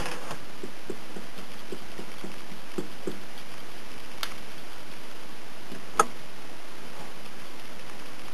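Light taps and clicks of drawing tools on paper card over a steady hiss: a run of soft ticks in the first three seconds, a small click after four seconds and one sharp click about six seconds in.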